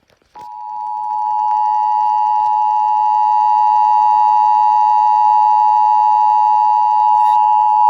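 Emergency Alert System attention signal: two steady tones near 1 kHz (853 and 960 Hz) sounding together. It starts about half a second in and swells up over the first second. It announces an emergency alert, here a flash flood warning.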